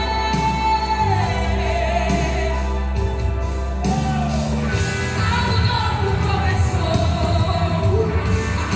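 Worship song playing, with a singer holding long, gliding notes over a band with bass and a steady beat.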